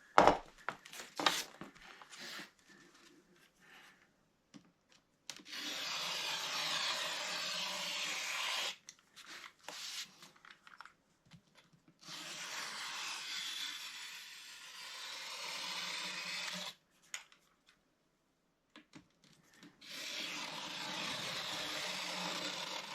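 A Milwaukee utility knife scoring drywall along a square: three long rasping cuts, each lasting several seconds, after a few sharp knocks and clicks at the start.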